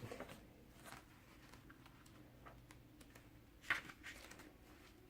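Faint rustling of paper pages being handled and turned, with a few soft clicks and one louder, brief rustle a little before the end.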